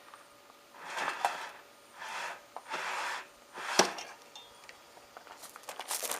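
Washing machine parts being handled and pulled apart: three rubbing, scraping sounds, a sharp knock about four seconds in, and a quick run of small clicks and rattles near the end.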